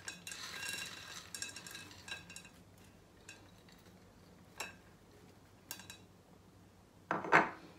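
Green peas poured from a small bowl onto vegetables in a tajine dish: a brief pattering rattle, then a few light clicks as they are spread by hand, and a louder knock near the end.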